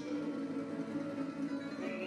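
Live Serbian folk string band playing: small plucked lutes over a double bass.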